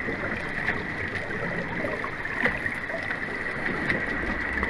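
Underwater ambience: a steady wash of water noise with a low rumble, a faint steady high tone and scattered faint clicks.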